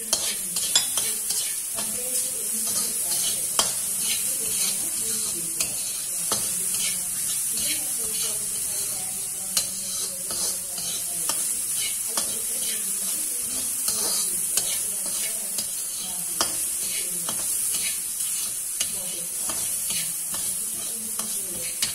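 Chopped vegetables sizzling in a wok while a metal spatula stirs them, with a steady sizzle and irregular clicks and scrapes of the spatula against the pan.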